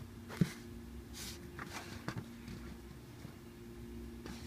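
Slow-rising polyurethane foam squishy shaped like a bread bun being squeezed and turned in the fingers: soft rustles of skin on foam and a few light taps, the clearest about half a second in. A faint steady hum sits underneath.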